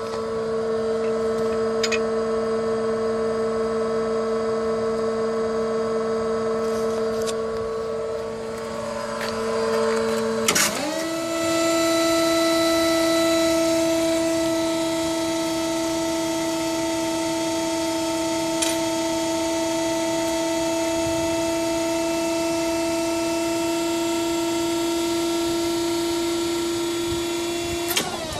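Forklift hydraulic pump whining steadily as the paper roll clamp attachment is operated. About ten seconds in the pitch jumps higher and holds level, then starts to fall right at the end.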